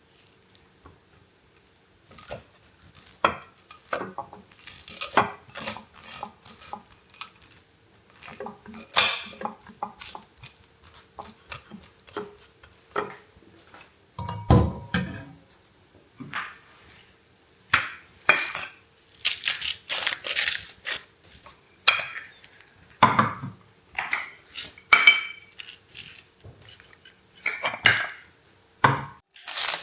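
Dishes and cutlery being handled: irregular clinks, knocks and clatters, with a heavier thud about halfway through.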